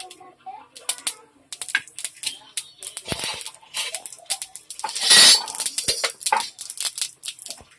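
Mustard seeds and cumin spluttering in hot oil during tempering: quick, irregular pops and crackles as chana dal goes into the pan, with a louder burst of sizzling about five seconds in.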